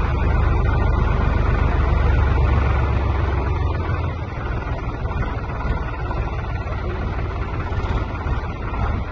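A tractor's diesel engine running steadily as the tractor wades through floodwater, its low rumble easing slightly about four seconds in.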